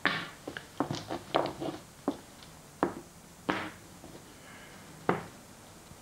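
Small game tiles clicking and clacking against each other and the table as they are handled and set down: a quick run of clicks in the first two seconds, then single clacks about three, three and a half and five seconds in.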